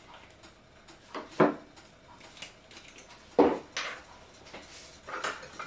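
A few separate knocks and clatters of containers and utensils being handled and set down on a work counter, the loudest a little past the middle.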